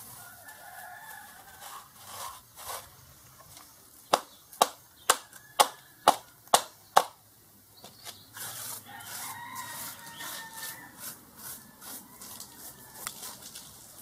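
Chickens clucking with a rooster crowing in the background. About four seconds in, a run of seven sharp taps comes roughly two a second, the loudest thing here. Scratchy rustling follows.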